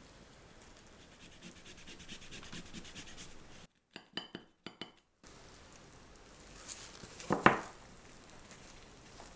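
Gloved hands rustling softly against a sugar-dusted sponge-biscuit cake. A kitchen knife clicks sharply against the cake plate a few times near the middle. Near the end comes a louder scrunch as the soft biscuit strips are squeezed around the filling.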